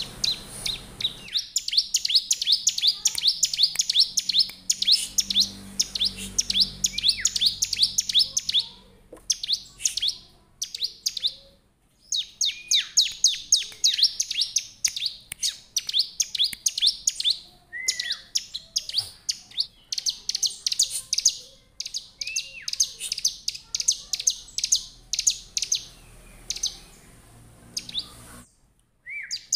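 Bar-winged prinia (ciblek) singing: long bouts of rapid, high, sharp chirps broken by several short pauses, with a few lower slurred notes between bouts.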